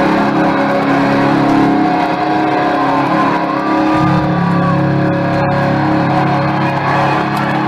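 A heavy metal band playing live, loud: sustained, distorted electric guitar chords over bass, with the chord shifting about four seconds in and a guitar line bending in pitch above it.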